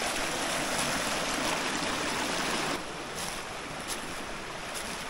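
Creek water flowing, a steady rushing hiss that drops noticeably in level a little under three seconds in.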